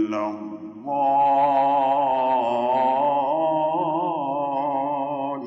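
Male Qur'an reciter's voice in melodic tajweed recitation (tartil sung in the Egyptian maqam style): a short falling phrase, a brief breath, then one long ornamented vowel held for over four seconds with a wavering, trilling melody.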